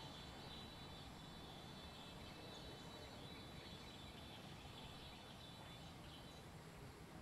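Near silence: faint outdoor ambience, a low steady background with a few thin high steady tones that fade out about halfway through.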